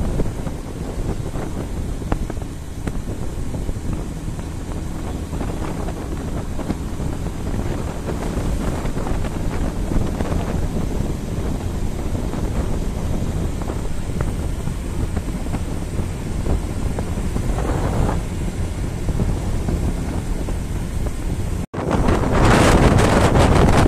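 Wind buffeting the microphone over the low, steady rumble of a motorcycle's engine and tyres at about 55 km/h. Near the end the sound cuts out for an instant and comes back as louder, gusty wind rush.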